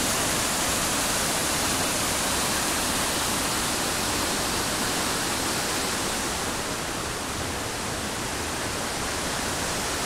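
Mountain waterfall and its cascading stream running strong, a steady rushing roar, a little softer for a few seconds past the middle. The flow is heavier than usual, perhaps from rain in the mountains.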